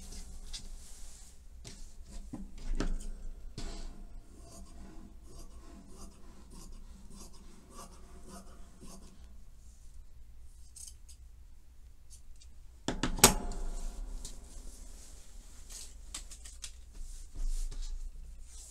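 Tailor's shears snipping through thin white fabric, blades clicking between cuts, with the fabric rustling as it is moved and smoothed. One loud, sharp click comes about 13 seconds in.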